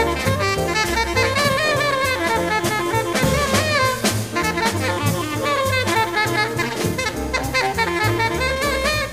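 Live small-group jazz: a tenor saxophone solos in long, wavering melodic runs over a double bass walking in even steps and a drum kit's ride cymbal and drums.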